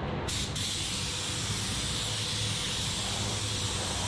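Gravity-feed paint spray gun hissing as compressed air atomises paint onto a car body panel, switched on about a third of a second in and held steady, over a steady low hum.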